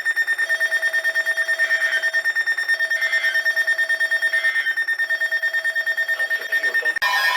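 Weather radio alert alarm beeping in a fast, even pulse of about eight beats a second. Near the end it switches suddenly to a different, steadier alarm tone, the kind that precedes a new warning.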